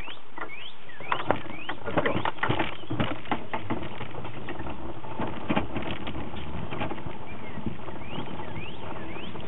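A bicycle rolling off along a sidewalk, with irregular clicking and rattling from the bike over a steady low rumble; the clicks come thickest in the first few seconds. Short rising chirps recur high up throughout.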